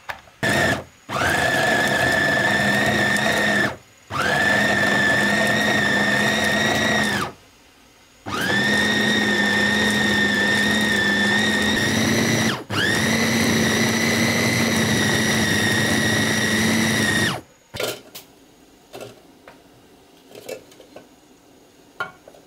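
Electric food chopper with a stainless steel motor head on a plastic bowl, pulsed: a brief blip, then four runs of three to five seconds each, the motor whine rising to a steady pitch at each start. Small knocks and clicks near the end as it stops.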